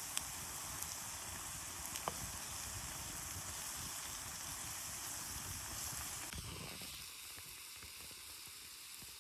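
An omelette frying in a pan over an open fire: a steady sizzle with a few light clicks, thinning and getting quieter about six and a half seconds in.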